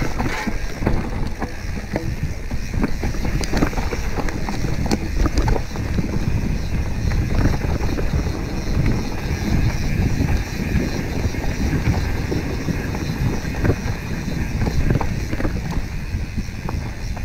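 Wind buffeting the microphone over the low rumble of a mountain bike riding fast downhill on a dirt singletrack: tyres rolling over packed dirt and dry leaves, with frequent knocks and rattles as the bike hits bumps.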